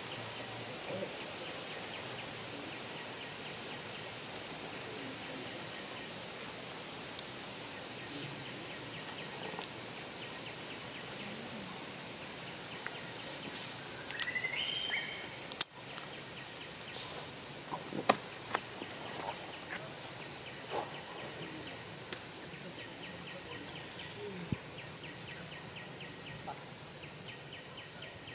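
Outdoor ambience dominated by a steady high-pitched insect drone, with a short rising call about halfway through and a few sharp clicks, the loudest just after the call.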